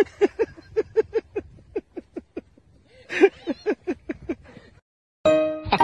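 A person laughing in a rapid string of high 'ha' sounds, catching a breath about three seconds in and laughing again. Music starts just before the end.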